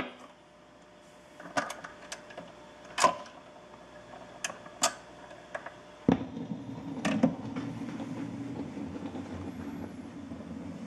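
VM four-speed record changer cycling between records: scattered clicks and clunks from the changer mechanism, then a thump about six seconds in as the next record drops and the arm sets down, followed by steady record surface noise from the lead-in groove through the speakers.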